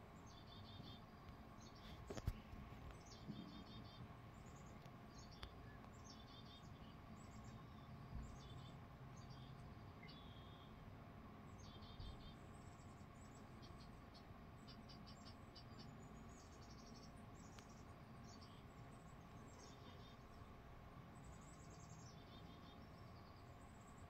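Faint high chirps and short trills, repeated irregularly, from a nature video with birds playing on a TV, over a low steady hum. A single soft knock comes about two seconds in.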